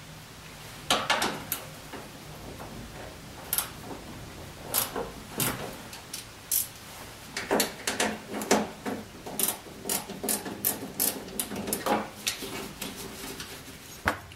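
Irregular metallic clicks, knocks and rattles of hand tools and a car's door check strap being worked inside the door shell as the strap is unbolted and pulled out through the speaker opening.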